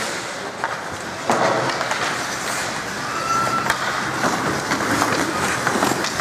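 Hockey skate blades scraping and carving across the ice as youth players skate past close by, with a few sharp clacks of sticks and puck.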